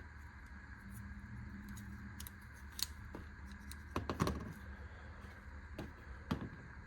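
Hand tools being handled: a few short sharp clicks and clacks, the loudest cluster about four seconds in, over a low steady hum.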